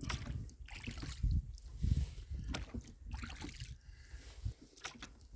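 Rowboat being rowed: oars pulling through the water with splashing swells, and a few sharp knocks.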